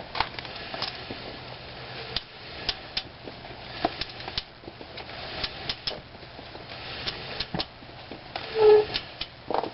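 Front wheel hub of a jacked-up Chevy Colorado being spun by hand to listen for bearing noise, with scattered clicks and knocks. A short, loud squeak comes just before the end. The hub is checked for a suspected worn wheel bearing behind a vibration through the gas pedal.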